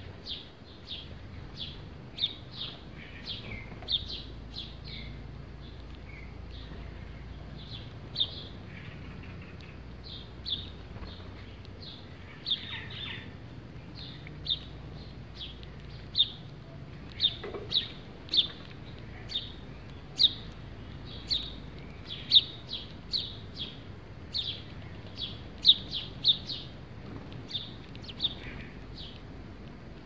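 A flock of house sparrows chirping: many short, high chirps at an irregular pace, coming more often in the second half.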